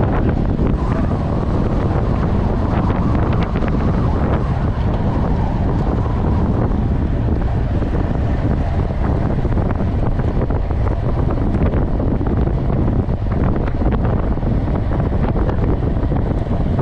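Wind buffeting the microphone of a bike-mounted action camera on a road bike moving at about 35 km/h, a steady heavy rumble with scattered faint clicks.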